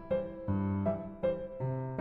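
Background music: piano or electric piano playing a chord pattern with a steady beat.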